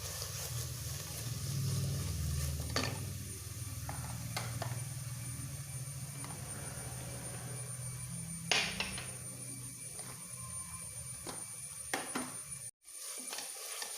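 A spoon stirring and scraping in a cooking pan as turmeric powder is worked into garlic, ginger and green chillies frying in oil, with a light sizzle. A few sharp clinks of the spoon on the pan, the loudest about eight and a half seconds in; the sound drops out for a moment near the end.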